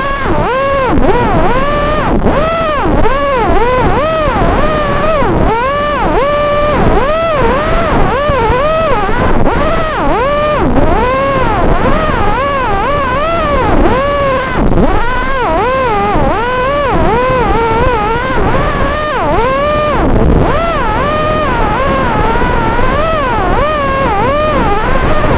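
Brushless motors of a 5-inch FPV racing quad (ZMX 2205 2633 kv motors on 5x4 props) whining in flight, the pitch swooping up and down over and over as the throttle is worked. Heard through the drone's analog video-link audio, which sounds thin and cut off at the top.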